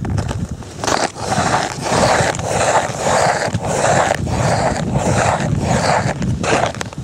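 Footsteps of snowshoes crunching through snow, about two steps a second, starting about a second in.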